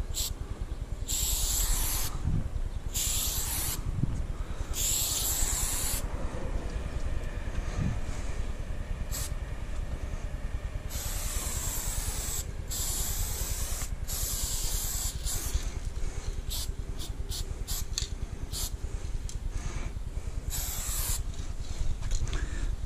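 Aerosol spray paint can hissing in bursts: several long sprays of about a second each, then a run of short, quick puffs, over a steady low rumble.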